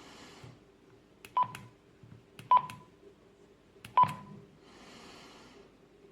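Keypad beeps from a Retevis RA79 handheld radio: three short single-pitch beeps, each just after a button click, as keys are pressed. Short bursts of hiss come near the start and again about five seconds in.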